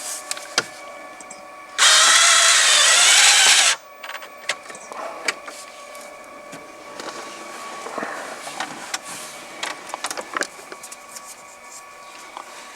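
Power drill-driver runs for about two seconds, driving in a dashboard trim screw at the lower instrument cluster. Light clicks and taps follow.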